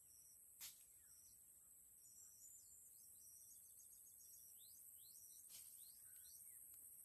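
Faint, steady high-pitched drone of insects, with birds giving short chirps through the middle. Two brief soft clicks, about half a second in and near the end.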